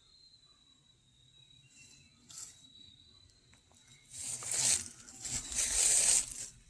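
Footsteps crunching and rustling through dry leaves and brush in woodland, starting about four seconds in. Before that a faint steady insect trill is heard.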